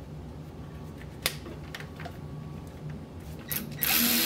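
A few light clicks of parts being handled, then near the end a cordless drill starts up and runs steadily, driving a fastener into the hose bracket, over a low steady hum.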